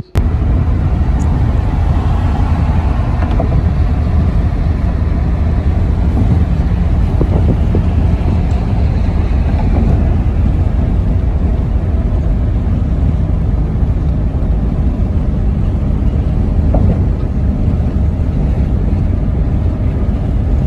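Steady, loud low rumble of a moving motor vehicle that starts suddenly and holds evenly throughout.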